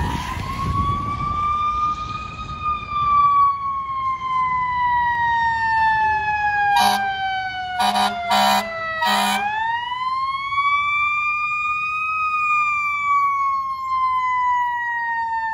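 Fire engine siren on a slow wail, rising and falling in pitch. About 7 to 9 seconds in it is cut through by four short horn blasts.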